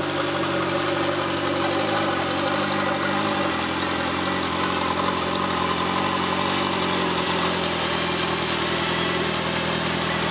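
Dune buggy engine running steadily at low speed while it drives through shallow water, with water splashing around its wheels.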